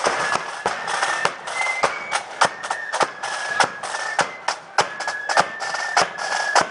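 Marching flute band playing: flutes carry a tune in high held notes over a steady beat of snare drums and bass drum, about three strokes a second.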